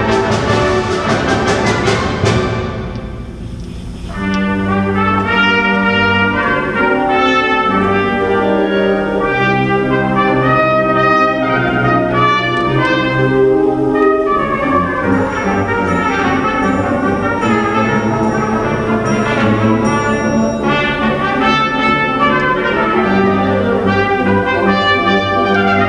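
Concert wind band with trumpet playing live. A loud full-band passage dies away about two and a half seconds in, and after a short softer moment the brass picks up a melody of held and moving notes.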